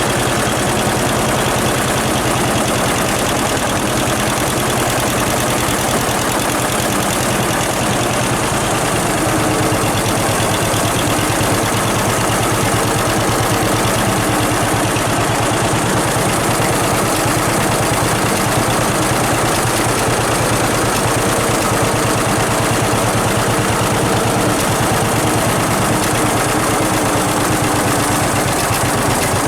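John Deere 6300 tractor's diesel engine running steadily under load, driving a John Deere 328 small square baler, with a rapid, even mechanical pulsing throughout.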